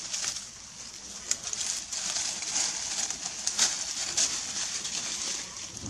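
Steady high-pitched outdoor background that swells and fades, with several sharp crackles of dry twigs and leaves as baby macaques clamber through the branches.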